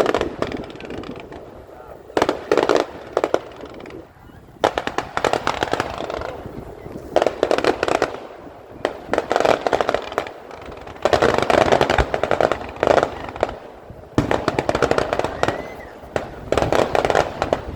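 Fireworks going off in repeated volleys of dense crackling, each lasting one to three seconds, coming roughly every two seconds.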